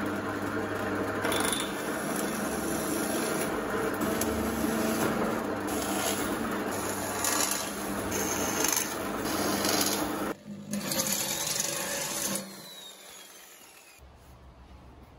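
Drill press running, its bit cutting through steel plate into the wooden board beneath: a steady rasping grind over the motor's hum. It breaks off briefly about ten seconds in and stops about twelve seconds in.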